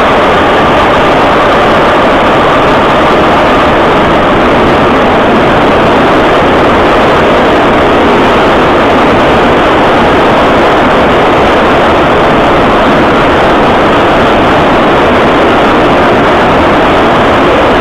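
Cabin noise of an 81-717.5M metro car running through the tunnel: a loud, steady rumble and roar of wheels on rails and running gear. A faint steady whine near the start fades out within the first couple of seconds.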